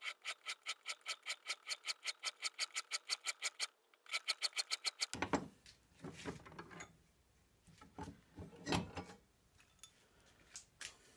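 Hand file rasping across a metal rod clamped in a bench vise, filing a flat spot for a set screw: quick, even strokes, about seven a second, with a short break and a second run of strokes. About five seconds in the filing stops, giving way to scattered clunks and knocks as the vise is worked and the metal parts are handled.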